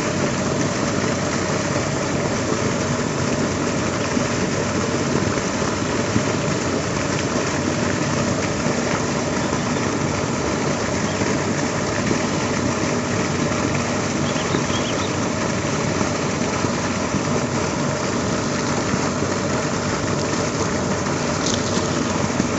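A steady motor drone with a faint hum running through it, unchanging in level.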